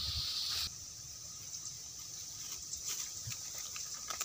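Steady high-pitched drone of insects, such as cicadas or crickets, with scattered faint ticks of leaves and twigs and one sharp click near the end.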